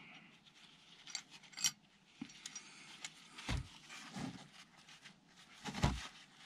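Metal automatic-gearbox oil cooler pipes with banjo fittings clinking and jangling as they are handled in gloved hands, with a few light clicks and two dull knocks, one about halfway and one near the end.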